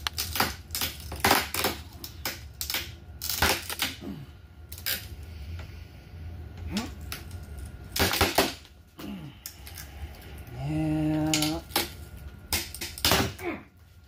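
Chain snap cutter being levered tight around a Keokuk geode: an irregular string of sharp clicks and cracks from the chain links biting into the rock's shell as pressure builds to split it.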